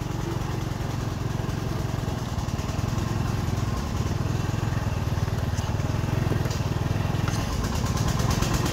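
Single-cylinder diesel engine of a công nông farm truck running steadily as it drives, a rapid even chugging that gets a little louder near the end.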